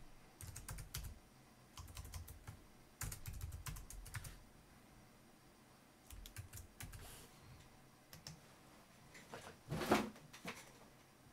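Typing on a computer keyboard in several short bursts of key clicks, with a louder click near the end.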